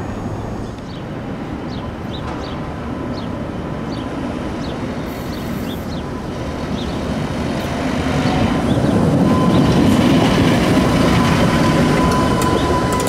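New Orleans 2000-series streetcar approaching and passing close, its wheels running on the rails with a steady whine. It grows louder about eight seconds in as it draws alongside.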